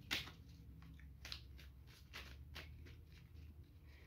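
Tarot cards being shuffled by hand: an irregular string of faint, soft card snaps and rustles, about two or three a second, the first the loudest.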